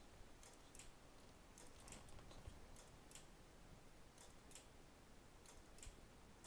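Near silence: quiet room tone with faint, light, high-pitched clicks that come in pairs about every second and a half.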